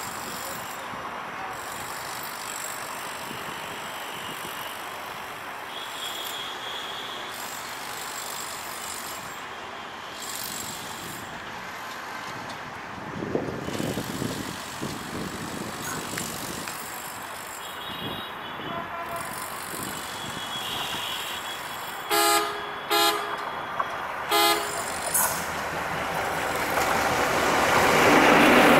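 ALCO WDM-3A diesel-electric locomotive approaching on broad-gauge track, its engine rumble coming up under a steady background of traffic noise. About two-thirds of the way through it sounds four short horn toots, the loudest sounds here, and the engine noise then swells as the locomotive draws alongside near the end.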